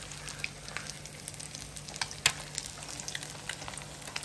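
Battered boiled eggs (egg bajji) deep-frying in hot oil in a wok: a steady sizzle full of small crackles and pops, with one sharper click a little past halfway.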